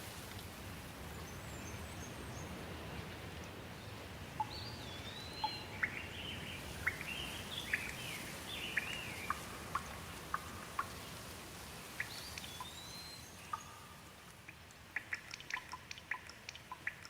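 Steady rain falling, with birds calling over it in short rising and falling chirps. About 14 seconds in the rain eases, leaving many separate drops ticking quickly.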